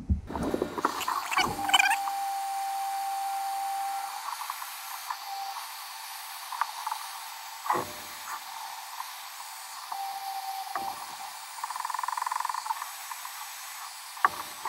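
Electric heat gun running, a steady blowing hiss as it heats the HDPE filler strip and kayak plastic for a weld, set on low. A few light knocks come through it.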